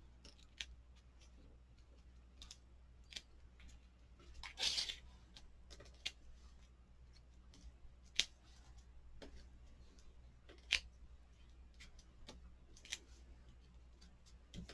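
Faint paper-craft handling: scattered small clicks and taps, with a short tearing rustle about four and a half seconds in, as card stock and adhesive pieces are peeled and pressed together.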